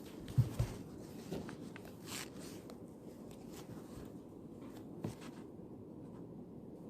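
Quiet study-room ambience: a steady low hum with faint desk sounds, including two soft thumps about half a second in and a few light ticks and scrapes after.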